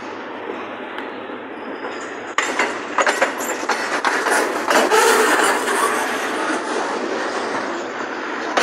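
Freight train cars rolling past close by, the wheels clacking and rattling over the rails with a steady rumble of rolling noise. It gets louder, with sharper knocks, about two and a half seconds in.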